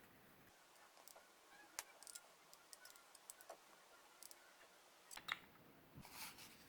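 Faint scattered clicks and light taps of small objects being handled, the sharpest a little after five seconds, followed by a brief rustle near the end.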